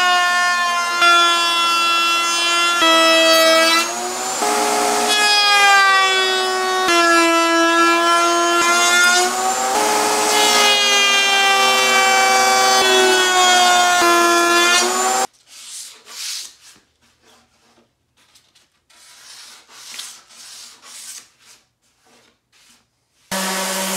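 Router motor in a router table whining steadily while a pine panel is fed past the bit, its pitch dipping as the bit cuts into the edge. It cuts off abruptly about 15 s in, leaving soft scrapes of a hand rubbing the wood. Near the end a random orbital sander starts with a lower steady hum.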